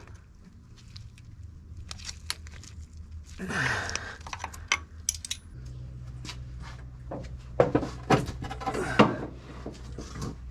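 Scattered metallic clinks and knocks of tools and brake parts being handled during brake bleeding, busiest about a third of the way in and again near the end, over a low steady hum.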